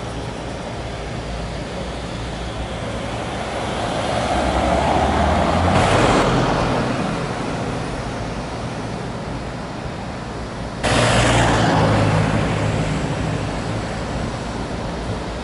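City street traffic. A car swells up and passes about six seconds in, then another loud vehicle sound starts abruptly near eleven seconds and fades away.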